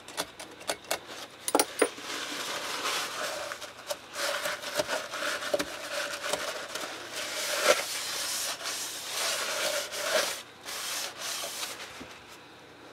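Rough cast-iron lathe tailstock casting being worked by hand with an abrasive, in repeated scraping strokes that fade out near the end.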